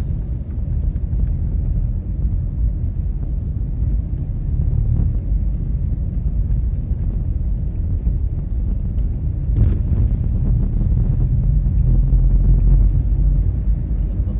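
Car driving on a paved road, heard from inside the cabin: a steady low rumble of engine and tyres, with a brief louder rush about ten seconds in.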